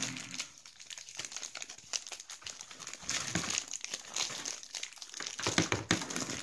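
Crinkly plastic wrapper of a Shopkins toy being unwrapped and crumpled in the hands, with louder bursts of crinkling about three seconds in and again near the end.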